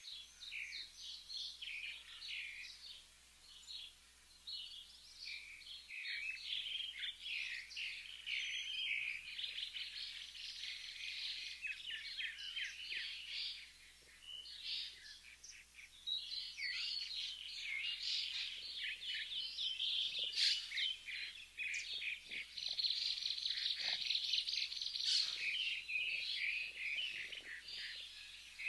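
Small birds chirping and twittering in a busy chorus of rapid short notes, with brief lulls about 4 and 14 seconds in.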